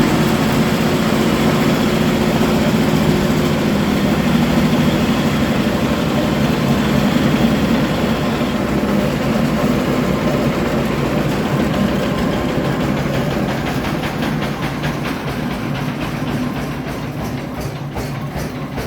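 A 23 hp engine running a rice grain (gabah) polishing machine, giving a dense, steady mechanical din. Over the last few seconds the sound gradually dies down and individual regular strokes become audible, as if the machine is winding down.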